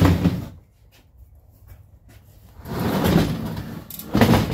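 Rubbing and knocking handling noise in three short swells: one at the start, one in the middle and one near the end.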